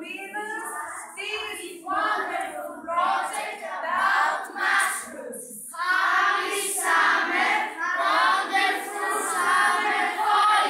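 A class of children singing together in phrases with short breaks.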